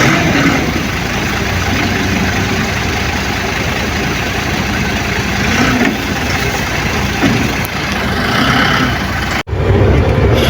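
Heavy vehicle engine running under a dense, steady rush of noise, its pitch rising and falling now and then. Near the end the sound cuts abruptly to a louder, deeper engine.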